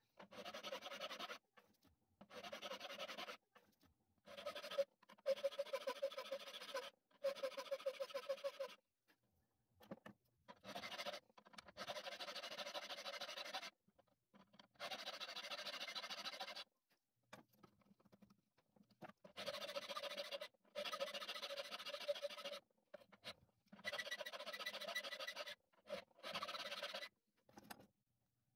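Hand file rasping across the steel head of a bolt clamped in place, in repeated runs of filing strokes a second or two long that start and stop abruptly, with short quiet gaps between them.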